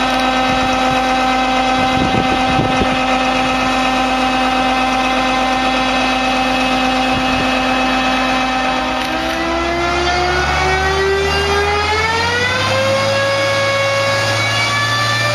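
Turbine ground start unit (APU) whining steadily; from about nine seconds a second whine rises in pitch for a few seconds and then levels off as the T-38 Talon's J85 turbojet spools up on start.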